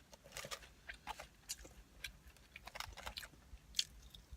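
A person chewing a mouthful of burger and curly fries close to the microphone: irregular short mouth clicks and smacks.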